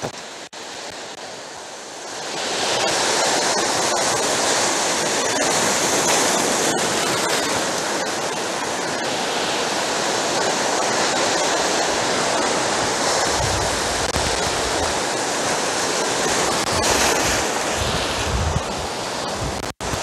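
Heavy sea surf breaking over rocks. It is quieter for the first couple of seconds, then a wave crashes and the rush of churning white water carries on steadily.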